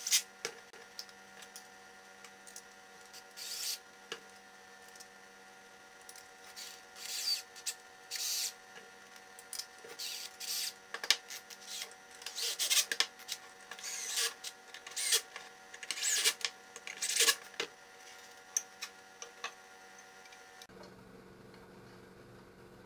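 Cordless drill-driver running in short bursts to drive small screws into a plastic and wood rail block, mixed with clicks and rubbing as the parts are handled.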